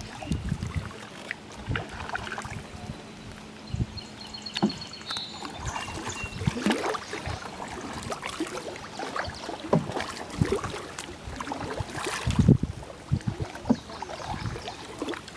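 Canoe paddling: the paddle blade dipping and pulling through the river water in irregular strokes, with splashes, drips and light knocks against the canoe. A brief loud rush of noise comes about twelve seconds in.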